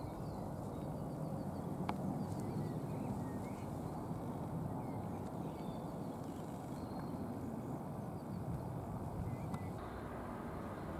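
Low steady rumble of locomotives in a rail freight yard, with small birds chirping over it and a single sharp click about two seconds in.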